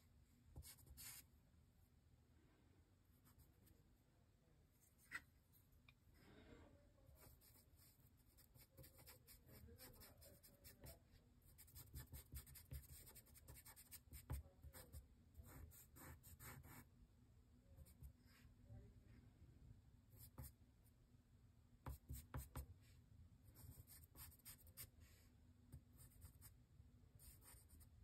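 Faint scratching of a charcoal pencil on drawing paper: short strokes in bursts, with quieter pauses between.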